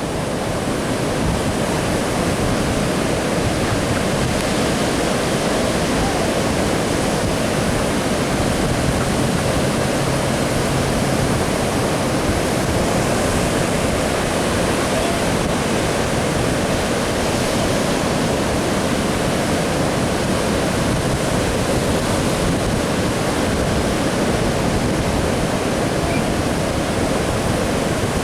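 Steady, unbroken rushing noise of surf.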